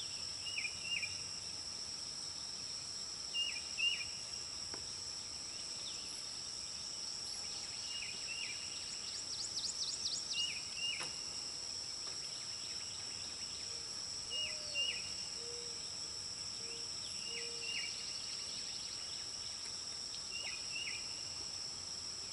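Steady high-pitched buzz of an insect chorus, with a bird repeating a short call of two quick notes about every three seconds and a brief fast trill about ten seconds in.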